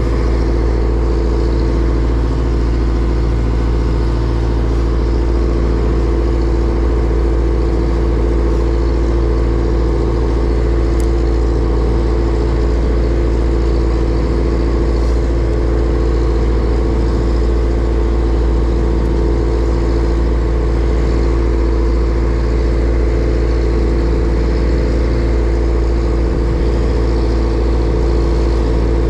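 A fishing boat's engine running steadily under way, a constant loud drone with a steady hum.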